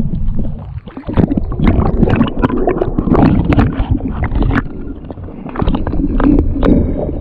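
Water splashing and sloshing, with repeated knocks and bumps on a kayak, as a large flathead is handled and released back into the water. A steady low rumble runs underneath, close to the microphone.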